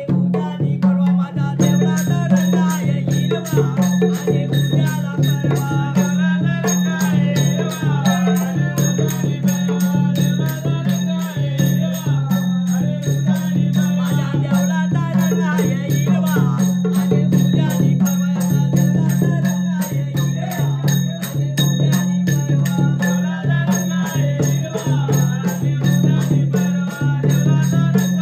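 Live folk music: a two-headed barrel hand drum beaten by hand in a fast, steady rhythm, with voices singing along and a jingling, ringing metal percussion.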